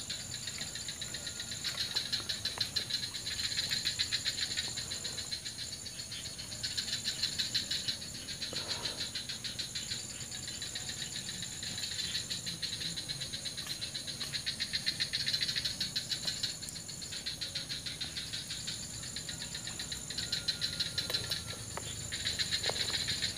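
Chorus of insects chirring in fast, dense pulses, swelling and fading every few seconds, with a steady high-pitched trill above it.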